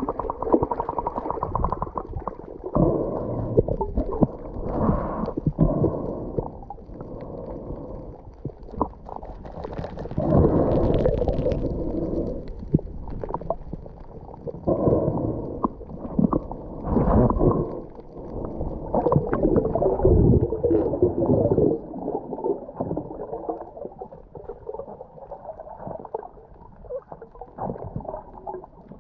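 Muffled underwater rushing and gurgling of water moving over a camera carried by a freediver swimming with fins, in uneven surges with a few soft knocks. It quietens for the last several seconds.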